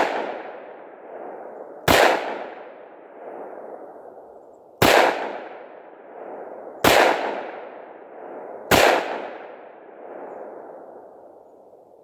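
Ruger SP101 revolver firing full-power .357 Magnum rounds: five shots, the first right at the start and the rest about two to three seconds apart. Each shot is followed by a long echo that dies away. Every round fires, with no misfire from a light primer strike under the lightened 10-pound hammer spring.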